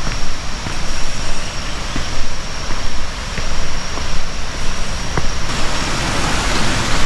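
Jungle ambience: a loud, uneven rushing noise with a rumble underneath and a steady high-pitched insect drone, with a few light clicks. About five seconds in, the hiss grows louder.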